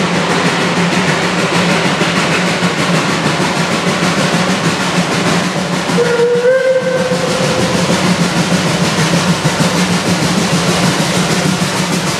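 Narrow-gauge steam locomotive approaching under steam with a steady, loud running and exhaust noise. About halfway through, its steam whistle sounds once, a short note that rises slightly and holds for about a second and a half.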